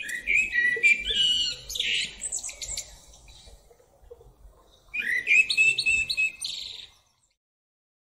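Male common blackbird singing two phrases, a few seconds apart. Each starts with low fluting whistles and ends in a higher, scratchy twitter.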